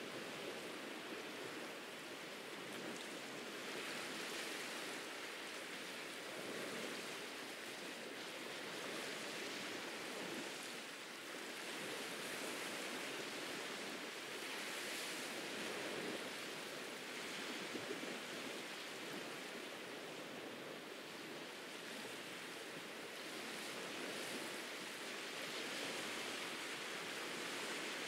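Ocean surf washing onto a beach: a steady hiss of waves that swells and eases every few seconds.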